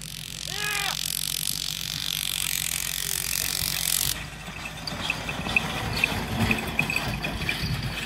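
A gust of wind rushing over the microphone, with one short call near the start. Then, after a cut, a racing bull and its light cart run close by: a low rumble of hooves and wheels on dirt, with knocks and a quick metallic jingle and rattle.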